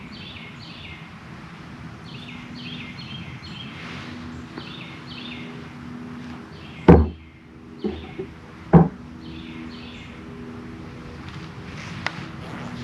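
A small bird singing a repeated phrase of quick, falling high notes, over a steady low hum. A little past the middle come two sharp knocks about two seconds apart, with two lighter taps between them.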